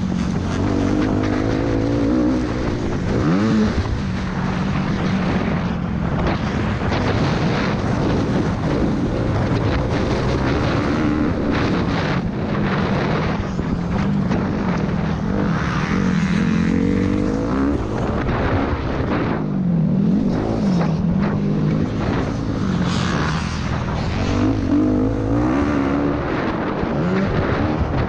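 Suzuki RM-Z four-stroke motocross bike engine heard from the rider's helmet, its revs rising and falling over and over as the throttle is opened and shut through the track's corners and straights.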